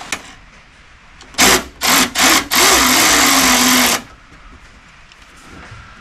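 Handheld power drill-driver: three short trigger bursts, then a steady run of about a second and a half, its motor pitch sinking and settling lower as it runs.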